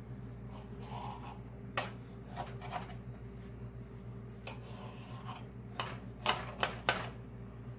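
A knife cutting through a baked pie's pastry crust: short scraping, crunching strokes, a few about two seconds in and a quicker run of four near the end, over a faint steady low hum.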